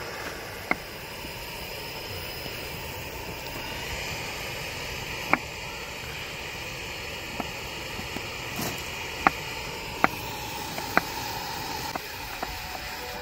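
Kitchen knife slicing through a zucchini and knocking on a wooden cutting board: about nine sharp, separate knocks at uneven intervals, most of them in the second half. A steady hiss runs underneath.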